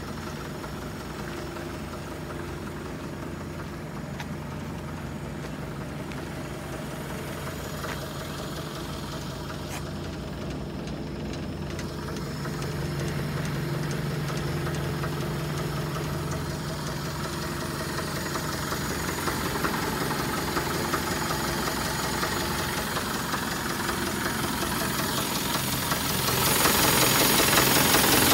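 Isuzu Elf truck's engine idling steadily with a knocking clatter, growing louder near the end.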